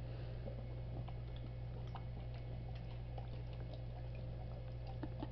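Dog chewing a sticky caramel: faint, irregular smacks and clicks of its mouth, over a steady low hum.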